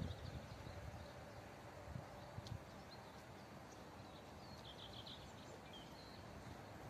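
Faint outdoor background noise at an idle railway crossing: a low rumble that fades away in the first second, then a steady faint hiss with a few small bird chirps about halfway through.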